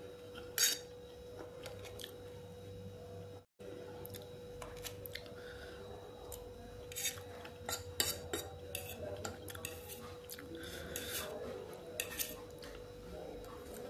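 Metal fork clinking and scraping against a plate while noodles are eaten, in scattered sharp clinks with a cluster a little past the middle.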